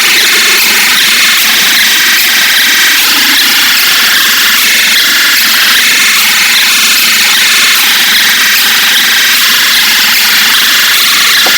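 Mock emergency-alert attention alarm, heavily distorted: a loud, steady, noisy high-pitched blare with a shifting, blocky texture and almost no bass.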